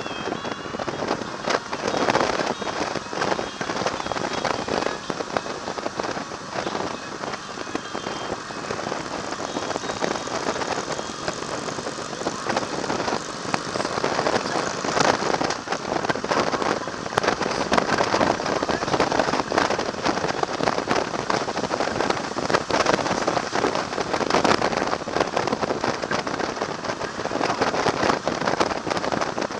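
Wind and road noise rushing over the microphone of a camera on a moving motorcycle at road speed: a dense, uneven crackling rush with no clear engine note.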